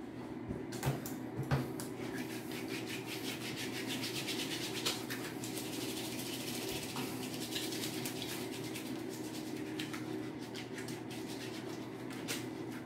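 Two light knocks about a second in, then hands rubbing and scrubbing together with soap over a bathroom sink, a steady rasping lather, with a low steady hum underneath.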